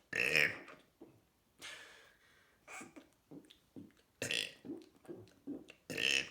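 A person burping over and over: a loud burp at the start, then a run of shorter, quieter burps in quick succession, with louder burps again about four seconds in and near the end.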